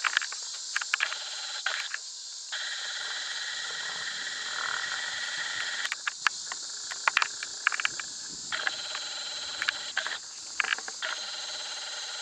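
Steady chorus of crickets and other night insects, a high even trill that swells and thins every few seconds, with scattered sharp clicks over it.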